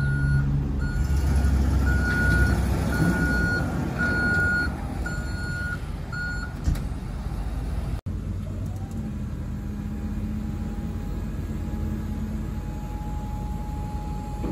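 2001 GMC W350 cab-over dump truck reversing, its backup alarm beeping about once a second over the 5.7-litre gasoline V8 engine. After a cut, the dump bed's hydraulic hoist starts with a short rising whine, then runs with a steady whine as the bed tips up.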